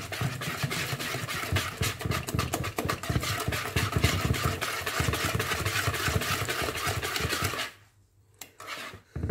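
Wire whisk beating a thick egg, sugar and ground-almond batter by hand in a bowl, in fast, even strokes that stop near the end.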